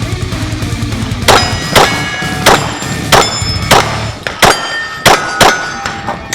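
A string of about eight shots from a Glock 22 .40 S&W pistol, roughly one every half-second. Each shot is followed by the ringing clang of a hit steel plate.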